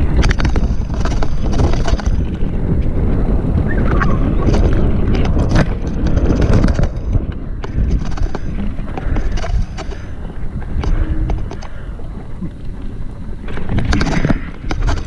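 Mountain bike rolling down a rough dirt trail: steady rumble of the tyres over the ground and wind on the microphone, with frequent knocks and rattles from the bike over bumps.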